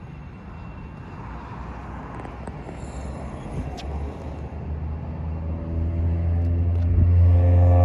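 A low outdoor rumble that grows steadily louder, with background music fading in over the last two seconds or so.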